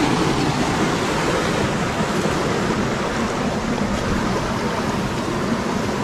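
Rocky stream rushing and splashing over boulders, a steady rush of water.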